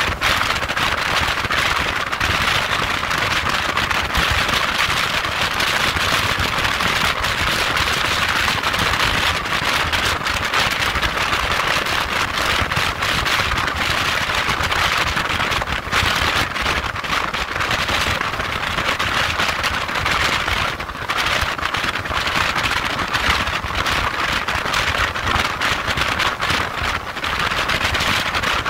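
Wind rushing and buffeting over the microphone on a motorcycle at motorway speed, crackling continuously, with a low rumble of the bike and road underneath.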